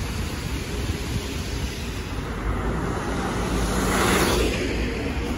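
Road traffic on a city street: a steady noise of passing cars, with one vehicle swelling louder as it goes by about four seconds in.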